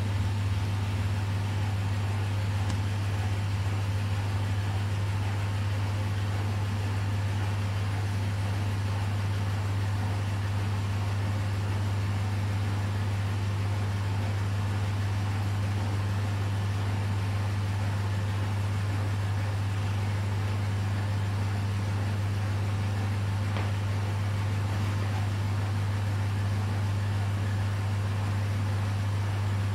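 Aquarium pumps running: a steady low mains hum over an even hiss, with no change throughout.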